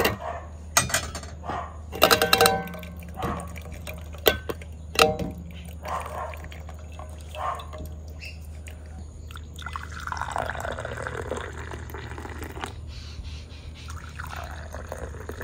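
Steel strainer and pan clinking against a steel mug as milk tea is strained, one clink ringing briefly. Then hot milk tea is poured from a steel vessel into glass cups: a splashing stream whose pitch slides as the cup fills, twice.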